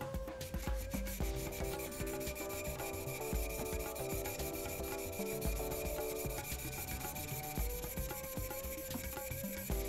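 The flat cutting bevel of a leather-cutting knife (kawatachi) being rubbed back and forth on a #3000 synthetic whetstone: a continuous abrasive scraping.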